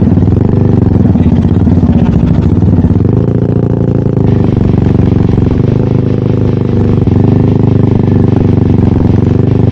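Kymco Xciting S400 scooter's single-cylinder engine idling steadily through an aftermarket Remus muffler, with a deep, bassy exhaust note.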